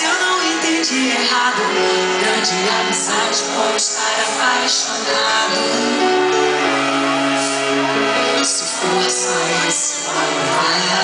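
A live pop song: a woman sings long held notes into a handheld microphone over a full musical backing, amplified through a PA.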